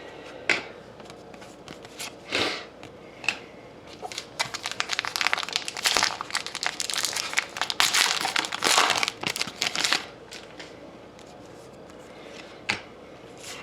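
Foil trading-card pack wrapper being torn open and crinkled, a dense crackling run in the middle with a few scattered rustles and clicks around it.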